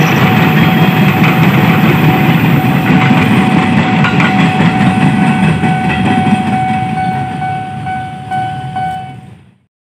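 KRL Commuter Line electric train running past on the track: a loud wheel-on-rail rumble with clickety-clack, under a faint steady high tone. The rumble slowly fades as the train moves away, then cuts off suddenly near the end.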